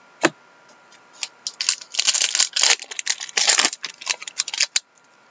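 A trading card pack being torn open by hand, its wrapper crinkling and crackling in quick irregular bursts for about three and a half seconds, after a single sharp click just after the start.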